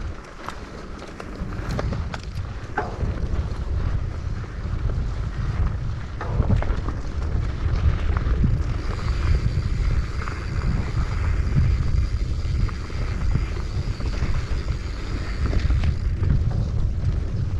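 Wind buffeting the microphone: a heavy, fluctuating low rumble that swells after about two seconds, with a few light clicks in the first seconds.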